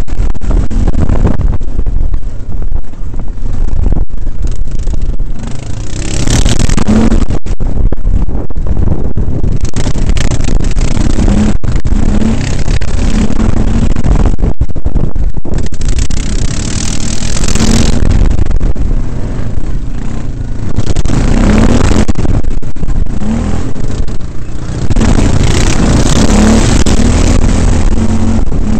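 Quad bike (ATV) engine running and revving up and down over and over while riding rough ground, under a heavy, loud low rumble on the microphone. The sound is overloaded and dense.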